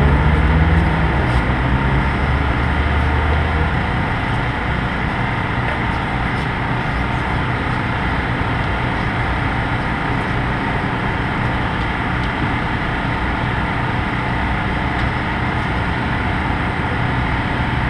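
Steady mechanical engine hum, with a deeper low rumble in the first few seconds that fades away after about four seconds.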